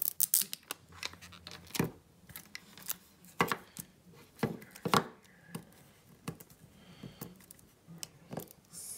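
Handling noise: irregular sharp clicks and knocks as objects are picked up, moved and set down on a wooden tabletop. A few louder knocks come about two, three and a half and five seconds in.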